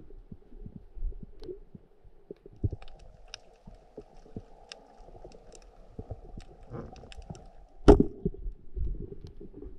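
Underwater sound picked up by a camera in a waterproof housing: dull low thumps and knocks with scattered sharp clicks, and a faint steady hum from about two and a half seconds in to about eight. One loud sharp knock about eight seconds in.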